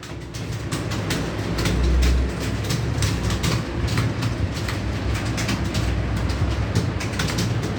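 Many computer keyboards being typed on at once, a dense, continuous clatter of keystrokes as a roomful of students types against the clock. A steady low hum runs underneath.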